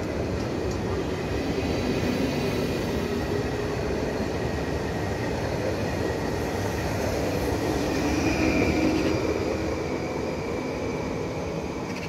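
PKP Intercity Stadler Flirt electric multiple unit pulling out and gathering speed past the platform: a steady rumble of wheels on rail with a thin electric whine from the traction equipment, swelling to its loudest about eight seconds in and then easing as the train draws away.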